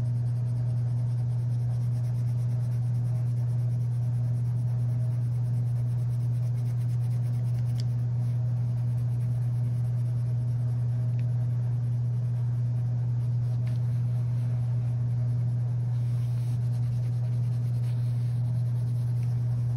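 Purple wax crayon rubbing back and forth on paper as a circle is coloured in with harder pressure. The strokes are faint under a steady low electrical hum, which is the loudest sound.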